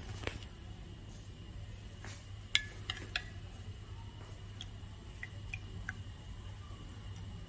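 A steel spoon clinking against a drinking glass of turmeric water, three quick clinks about two and a half seconds in, then a few softer taps as the spoon is lifted out, over a steady low hum.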